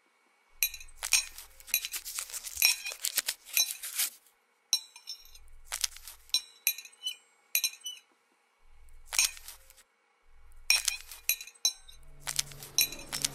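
Metal knife and fork clinking and scraping against a ceramic plate, in quick clusters of sharp clicks with short pauses between. Music begins near the end.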